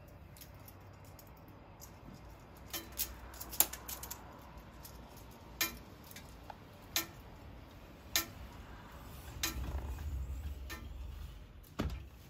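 Plastic clothes pegs on a hanging drying rack clicking and clattering as they are pinched open and clipped onto a plush toy, several sharp separate clicks, with a low rumble shortly before the end.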